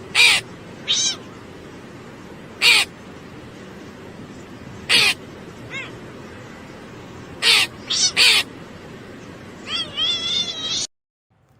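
A cat giving a string of short, high meows, about eight spread over ten seconds, then a longer wavering meow, over a steady background hiss; it cuts off suddenly near the end.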